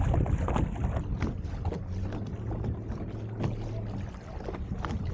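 Water splashing and rushing along a moving kayak's hull, short splashes over a steady low rumble of water and wind.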